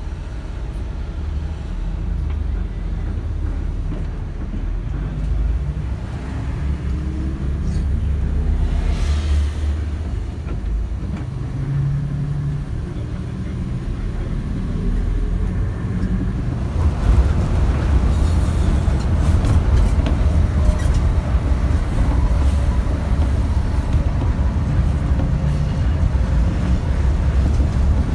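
Mercedes-Benz OH 1526 coach on the move, heard from the driver's cab: a steady diesel engine and road drone, with the engine note rising a few times about six to twelve seconds in. The whole noise grows louder from about 17 seconds in as the coach picks up speed.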